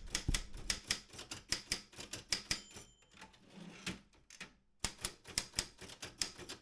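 Robotron 20 typewriter being typed on: a run of sharp key strikes, about five a second. The strikes stop for about a second and a half past the middle, then resume.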